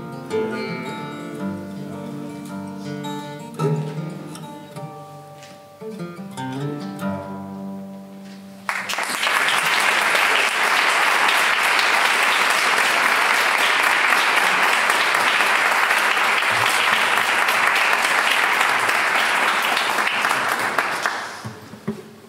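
An acoustic guitar plays the last notes of a piece and lets them ring out. About nine seconds in, an audience breaks into applause, the loudest sound, which goes on for about twelve seconds and then dies away.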